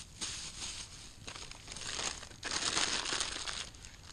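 Plastic wrapping crinkling as it is handled, in three rustling stretches of about a second each.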